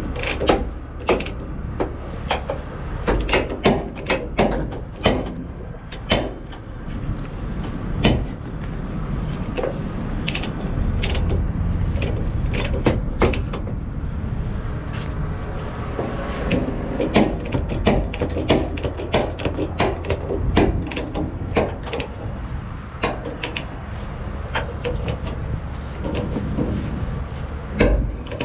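Ratchet chain binder being cranked to tighten a tie-down chain, its pawl clicking in irregular runs with the chain links clinking, over a steady low rumble.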